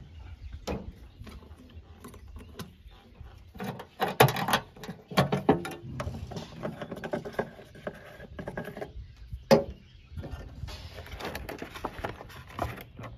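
Hand-handling noises on a tractor: clicks, knocks and scrapes as the plastic diesel-tank cap is opened and a plastic fuel jug is uncapped. There is a cluster of knocks about four seconds in and a single sharp click a little past the middle.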